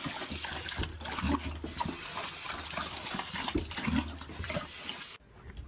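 Rushing water, a steady hissing flow with a few small knocks in it, which cuts off abruptly about five seconds in.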